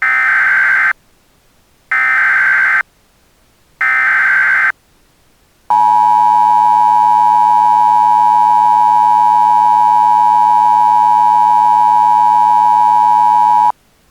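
Emergency Alert System broadcast tones: three short warbling bursts of SAME header data about two seconds apart, then the steady two-tone EAS attention signal held for about eight seconds before cutting off sharply. These tones announce an emergency alert message.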